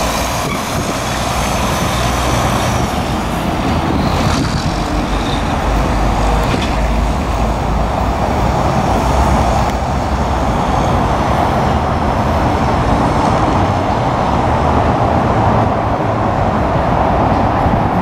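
Steady road traffic noise, with a tractor-trailer driving past near the start.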